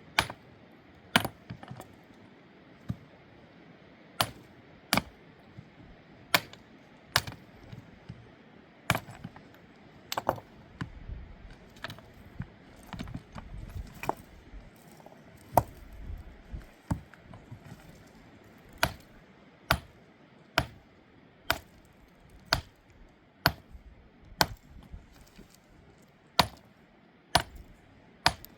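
A series of sharp, hard knocks with a slight clink, one every second or so, sometimes two in quick succession, with a low rumble in the middle.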